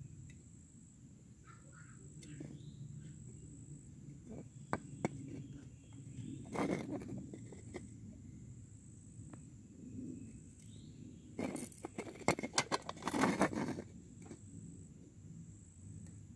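Close rustling and scraping of handling noise, in short crackly bursts, loudest about two thirds of the way in, over a low rumble. A faint, steady, high-pitched insect trill runs behind it and breaks off now and then.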